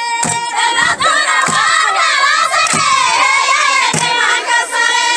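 A group of women singing a Somali baraanbur song together, with voices wavering and overlapping. Sharp clapped beats come roughly once a second.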